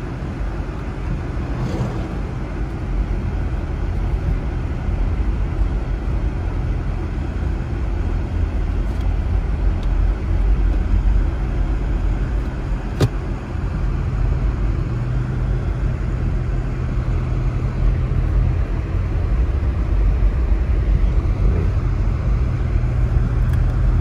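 Steady car-cabin road noise while driving on a snow-packed road: tyre rumble and a low engine hum, with one sharp click partway through.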